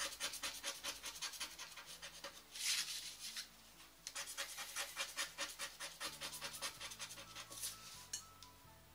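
Lotto 'Super 7' scratch card having its silver coating scratched off in fast, rhythmic strokes, about eight a second, with a brief louder scrape about three seconds in.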